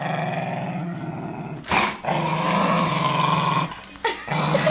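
A dog growling in long, low, steady runs while guarding her bag of dog food: resource guarding. Three growls, the first two split by a brief sharp sound, the third starting near the end.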